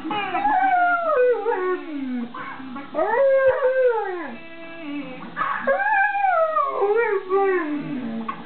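Young goldendoodle howling along to a song: three long howls, each falling in pitch at the end, the middle one rising first, with the music playing underneath.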